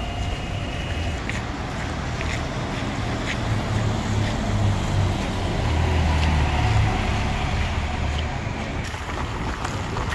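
A city bus driving past on a wet street, its motor and tyre noise swelling about halfway through and then easing off.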